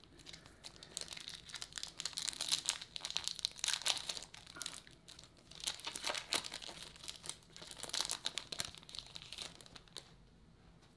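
Foil wrapper of a baseball card pack crinkling and tearing in bursts as it is ripped open by hand. The rustling stops about a second before the end.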